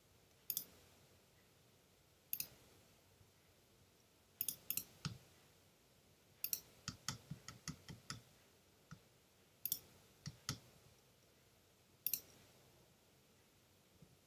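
Scattered sharp clicks from someone working a computer: single clicks and pairs, with a quick run of about eight a little past the middle.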